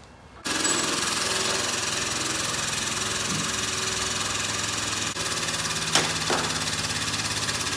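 A frame-machine pump starts abruptly and runs steadily with a fast, even pulsing, driving a pull on the car's damaged front end. There are a couple of short knocks near the end.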